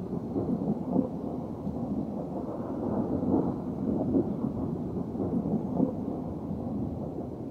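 A low, uneven rumbling noise with irregular swells.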